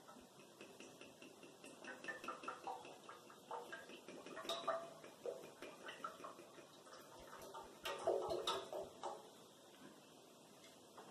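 Faint, irregular clicking and ticking, thickest about eight seconds in.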